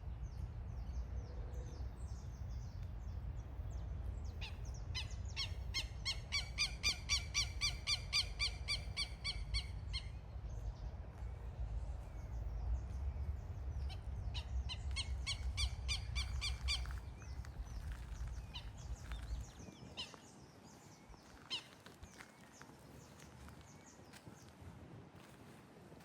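A bird calling in two runs of rapid, evenly repeated high notes, the first lasting several seconds, the second a few seconds. A low rumble runs under the calls and stops about twenty seconds in; only a few faint calls follow.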